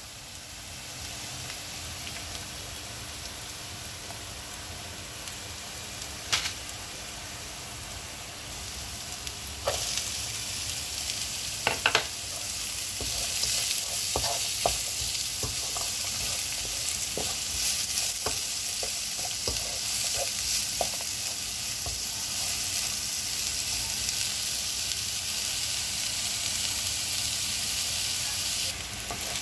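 Minced garlic sizzling in hot oil in a nonstick pan, stirred with a wooden spatula that clicks and scrapes against the pan. The sizzle grows louder about ten seconds in, as chopped onion goes into the pan, and frequent spatula clicks follow.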